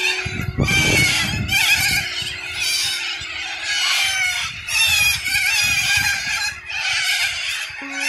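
A large flock of corellas screeching and squawking, a dense din of overlapping harsh calls that swells and ebbs in waves.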